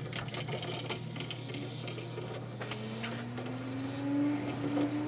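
Pioneer CLD-D925 LaserDisc player's mechanism whirring and clicking as it switches over to read side A, over a steady low hum, with a motor whine that slowly rises in pitch from about two seconds in.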